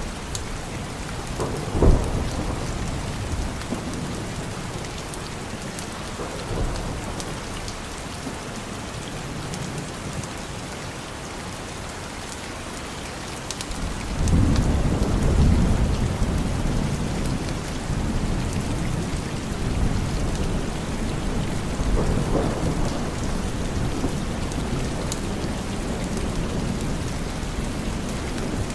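Steady rain with thunder: a sharp clap about two seconds in, a long rolling rumble starting about halfway through, and a smaller rumble later on.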